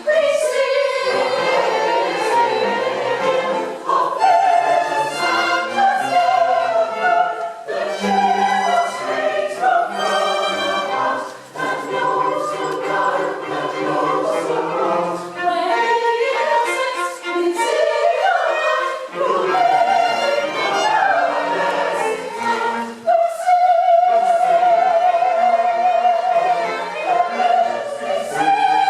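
Choir singing a classical choral piece with a string ensemble accompanying, sustained phrases with vibrato, a held note near the end.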